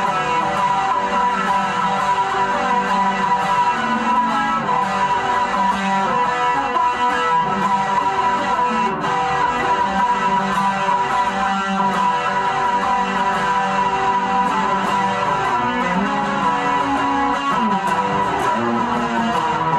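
A six-string guitar played continuously, a repeating pattern of picked notes.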